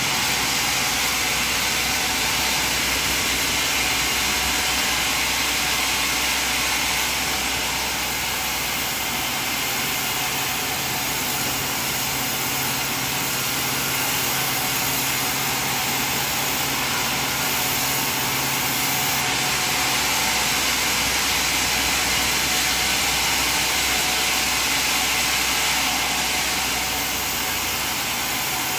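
Sawmill machinery running with a steady, even mechanical noise and a low hum underneath, holding constant throughout.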